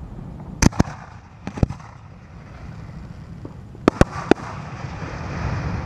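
Aerial fireworks going off: sharp bangs in clusters, a pair just over half a second in, another pair around a second and a half, and three more about four seconds in.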